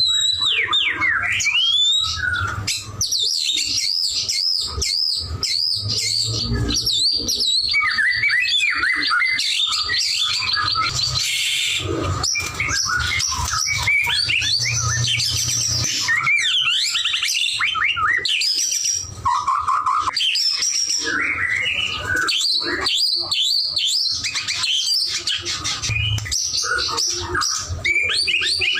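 White-rumped shama singing continuously: a long, varied run of rapid whistles, trills and chirps with hardly a pause. This is the vigorous, sustained singing that keepers call "gacor".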